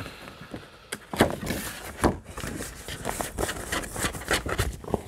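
Paper and a clear plastic sleeve rustling and scraping as an envelope is handled and slid into the sleeve, with a few irregular light knocks and crinkles.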